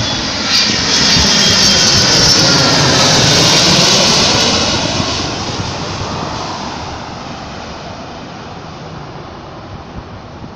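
Boeing 757 jet engines passing close overhead: a loud jet rumble and whine that peaks in the first few seconds, with the whine falling in pitch, then fades steadily as the plane moves away.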